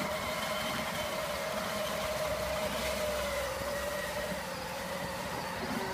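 Electric drive motors and gearboxes of a child's Power Wheels ride-on buggy whining steadily as it pushes through snow, the pitch sagging slightly after the middle.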